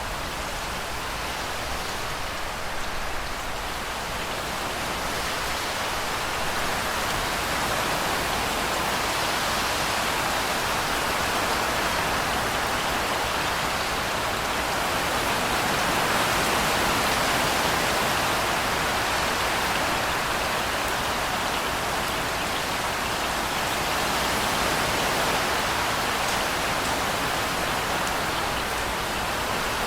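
Steady rain: an even hiss of falling rain, no thunder, swelling slightly about halfway through.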